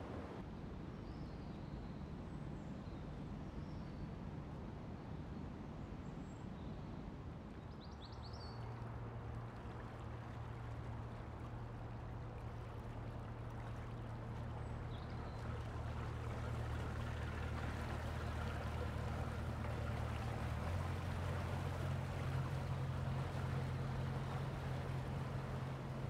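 Water rushing and churning through the sluices of a river lock. A motor cruiser's engine joins with a steady low hum about eight seconds in, shifts pitch about twenty seconds in, and grows louder toward the end as the boat moves off.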